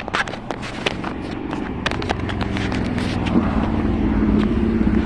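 A road vehicle's engine growing steadily louder as it approaches along the busy street. Scattered clicks and knocks come in the first two seconds.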